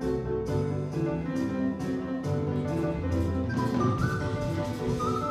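Jazz band playing live, with a walking bass line and regular percussion strikes under held chords. A melody line slides between notes in the second half.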